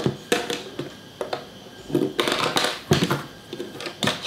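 Chess pieces being set up on a wooden board: a run of irregular clicks and taps as pieces are put down, with a brief clatter of several pieces about two seconds in.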